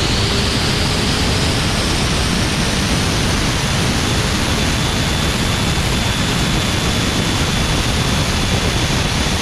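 Steady wind rush and road roar from a car travelling at high speed, with the engine note mostly buried under it.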